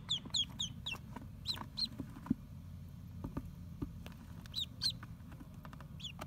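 Mallard ducklings peeping: short calls that fall in pitch, a quick run of them in the first second, then pairs about a second and a half and about four and a half seconds in. A few light taps sound between the calls, over a steady low hum.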